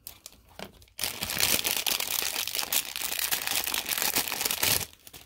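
Clear plastic packaging crinkling and crackling as it is peeled off a rubber luggage tag, starting about a second in and stopping shortly before the end.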